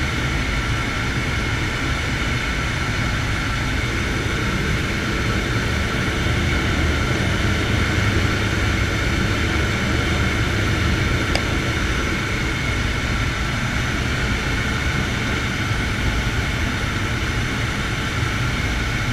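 Air Tractor 502's Pratt & Whitney PT6A turboprop engine and propeller running steadily in flight, heard from inside the cockpit: a low drone with a steady high whine over it, swelling slightly in the middle.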